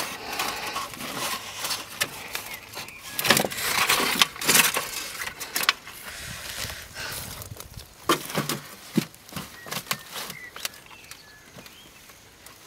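Hands splashing and squelching in shallow muddy water inside an old metal computer case while picking out fish, with irregular wet slaps and sharp clicks, busiest in the first half.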